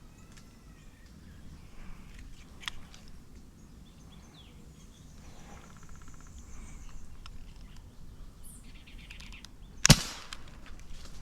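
One sharp air rifle shot near the end, a single crack that is by far the loudest sound. Wild birds chirp and call faintly before it, with a fainter click earlier on.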